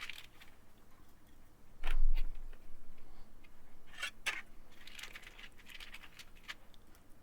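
Screwdriver driving screws that fasten a motherboard to a metal mainboard tray: scattered small clicks and scratching, with a heavier bump about two seconds in and two sharp clicks near the middle.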